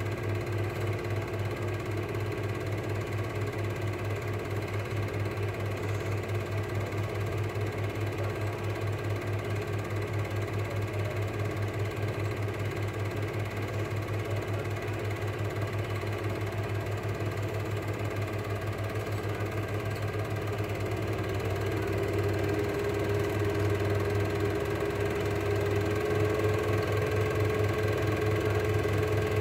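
Cine film projector running: a steady motor hum with a fast, even clatter from the film mechanism. Its whine rises slightly in pitch and the sound grows a little louder about 21 seconds in.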